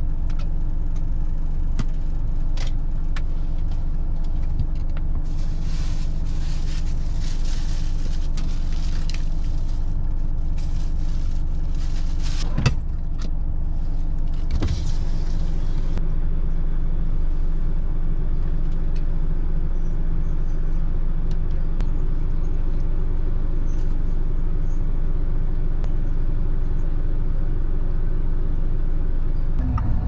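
Steady low machine hum with a sharp click about 13 s in, where a higher tone in the hum stops. Stretches of hiss come and go between about 5 and 16 seconds in.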